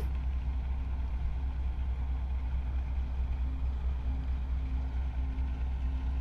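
Steady low drone of a tugboat's diesel engine towing hard on a grounded coal barge.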